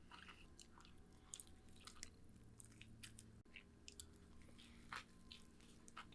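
Faint chewing of a mouthful of cheeseburger: soft, irregular wet mouth clicks, a few slightly louder than the rest.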